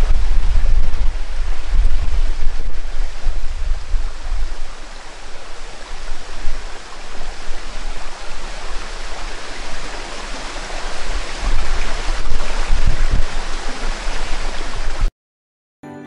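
Stream-side ambience: a steady hiss of flowing water with gusts of wind rumbling on the microphone, heaviest in the first few seconds and again near the end. It cuts off suddenly about a second before the end.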